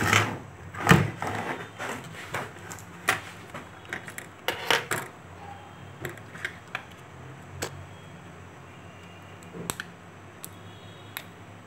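Workbench handling sounds: a metal IC stencil plate is moved and set down with a couple of loud clatters in the first second, then scattered light clicks and taps as a phone circuit board and its small parts are handled.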